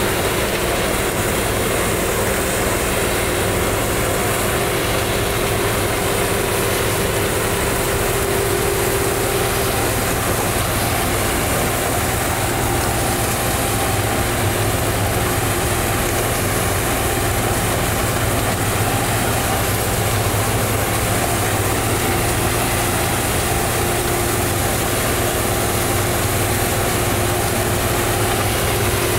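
Sugarcane harvester running steadily while cutting cane and feeding it up its elevator, with a tractor engine running alongside: a constant engine drone with a steady hum over it.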